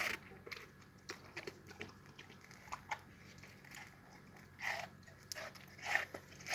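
A dog chewing and crunching watermelon: irregular crunches and bites, with a few louder ones in the second half.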